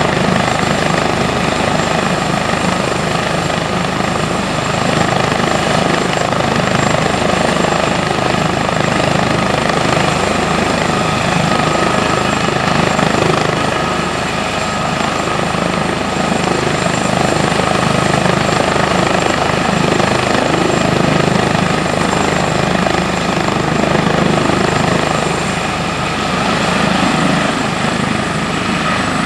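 An Airbus H145 helicopter running on the ground with its main rotor turning before lift-off. Its twin turbines and rotor make a steady sound with a high whine held throughout.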